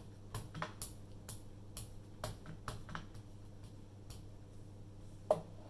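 Rubber brayer being lifted and rolled again and again across an ink pad, giving irregular light ticks and clicks, about two or three a second, with one louder click near the end.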